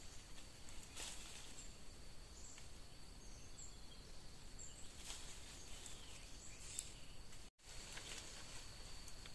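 Faint forest ambience: a steady high insect tone, a few short faint bird chirps, and scattered faint clicks and rustles of branches being handled.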